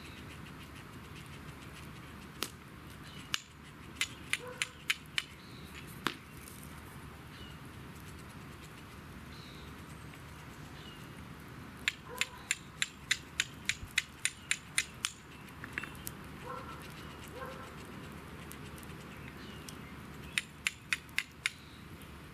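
A piece of chert struck against a straight carbon-steel fire steel, giving sharp clicks in three runs of quick strikes, about three a second in the longest run: a flint-and-steel attempt to throw sparks onto char cloth.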